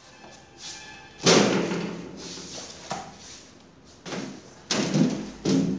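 Metal clunks and knocks from a hydraulic hand pallet truck being handled. One loud clunk comes about a second in, with a short low ringing after it. A faint knock follows, then three more clunks in quick succession near the end.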